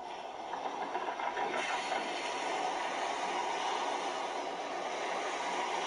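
Recorded sound effect of a boat at sea, played back: a steady rushing noise.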